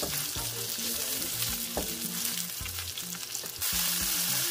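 Chicken pieces sizzling in hot oil in a nonstick wok while a wooden spatula stirs and scrapes them around the pan. The sizzle gets louder near the end.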